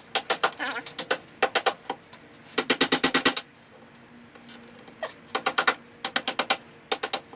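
Short bursts of rapid, sharp metal-on-metal strikes, about ten a second, against the rivets of a VW Beetle door hinge as they are driven out. There are four quick bursts, a pause of about a second and a half, then three more short bursts.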